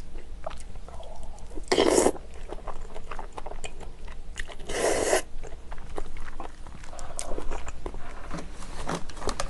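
Close-miked eating sounds: wet chewing of soft stewed kimchi and glass noodles, with light clicks of chopsticks and spoon. Twice a short, louder slurp stands out.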